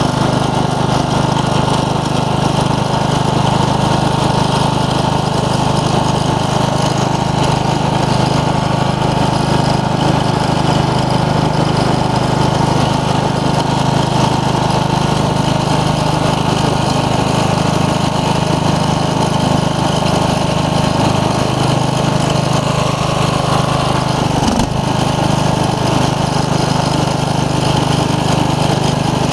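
The 15 hp OHV Briggs & Stratton engine of a 1990 Craftsman riding mower running steadily at an even speed, with one brief click about three-quarters of the way through.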